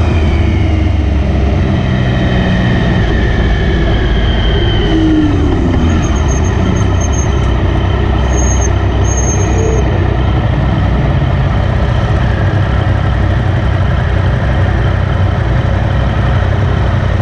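Motorcycle engine slowing down, its pitch falling over the first several seconds as the bike comes to a stop, then idling steadily.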